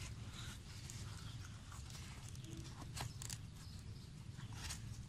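Faint scraping and rustling of a work glove handling an opuntia cactus pad on concrete, with a few soft clicks about three seconds in and near the end, as the small pad is twisted loose.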